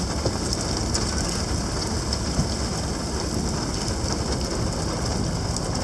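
Heavy rain falling steadily, heard from inside a vehicle through its open side door.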